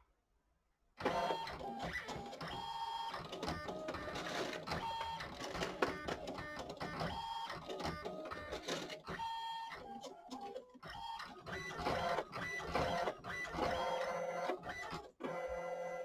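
ALPS MD-5500 thermal-transfer printer at work. It starts suddenly about a second in. Its motors run in short, stepping runs of steady pitched tones that change pitch from run to run, mixed with frequent mechanical clicks.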